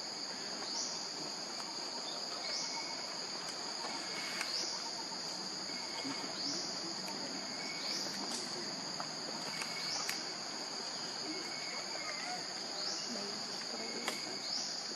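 Steady, high-pitched insect chorus, with a short rising chirp repeating about every two seconds.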